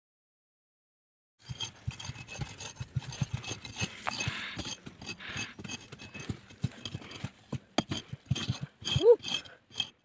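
Small hatchet striking and scraping hard red earth: irregular sharp knocks, a few a second, with loose soil scraping between them. They start about a second and a half in. A brief pitched sound that rises and falls comes near the end and is the loudest moment.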